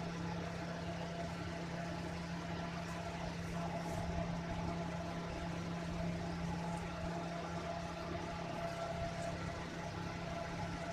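Steady low hum over a constant background hiss.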